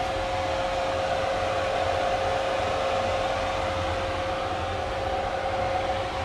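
Steady machine hum with a constant mid-pitched whine over a low rumble, like a running fan.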